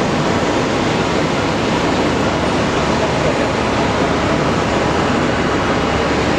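Airbus A380's four turbofan engines running at taxi power as the airliner taxis: a steady rushing jet noise with a faint whine in it.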